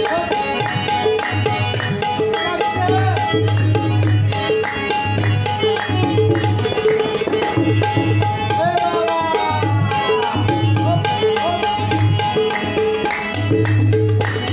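Background music with a steady hand-drum beat and a melody.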